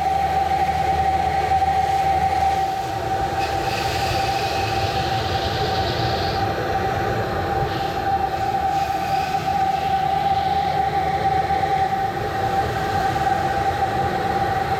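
Pressure washer running under load, a steady whine with the hiss of its water spray.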